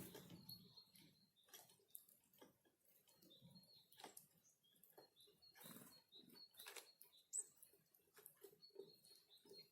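Small forest birds at a winter feeding spot: faint, short, high chirps repeated many times, among light pecking taps and rustles, with one sharper tap a little after seven seconds in.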